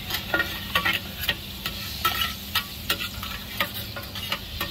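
A metal spatula scraping and striking a wok in quick, irregular strokes, about three a second, some with a short metallic ring, as rice noodles are stir-fried over a steady sizzle.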